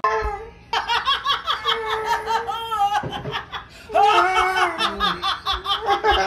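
Hearty, loud human laughter in long pulsing bouts, breaking off briefly about half a second in and again around the three-second mark.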